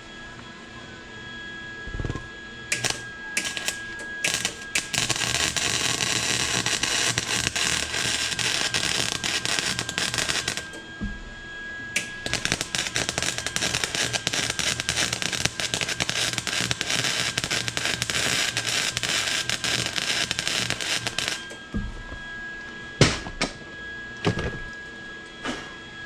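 Electric arc welding crackle in two long runs, the first starting about five seconds in and the second after a brief break near eleven seconds, while a nut or bead is welded onto a broken cylinder-head stud to get it out. A few separate knocks come before and after the welding.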